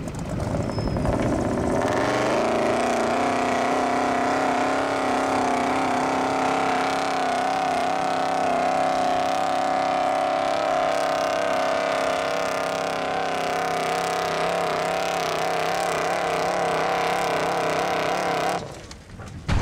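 Off-road pickup truck's engine revving up and held at high revs under heavy load as it tows a heavy forklift through dirt. The pitch climbs about two seconds in, holds with a slight waver, then drops away sharply near the end.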